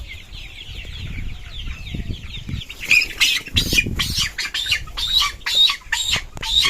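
A flock of 32-day-old colour bird chickens calling steadily. From about three seconds in comes a loud burst of wing flapping and rapid repeated squawks, about four a second, as a black chicken is grabbed by hand.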